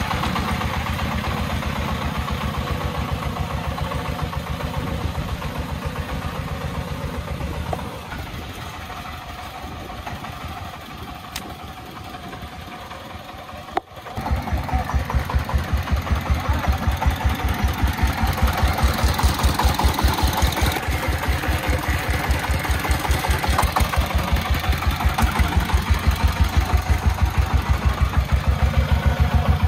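Single-cylinder diesel engine of a loaded three-wheeled công nông sand truck chugging with an even, rapid beat. It fades for a few seconds in the middle, then cuts in suddenly much louder and closer, running on with the same steady pulse.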